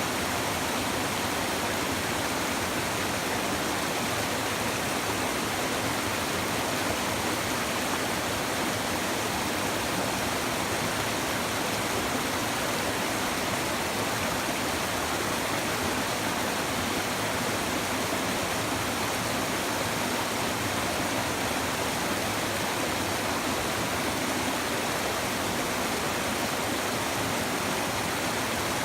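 A shallow river or stream babbling steadily over stones, an even rushing and splashing that neither rises nor falls.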